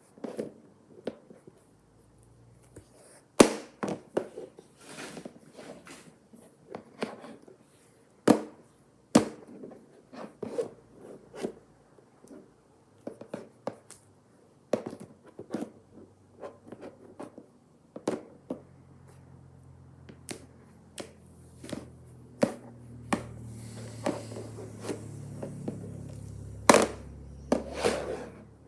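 Small plastic toy monster figures handled and knocked against each other and on a tabletop: a long string of irregular sharp clacks and taps with rubbing between. A low steady hum comes in about two-thirds of the way through.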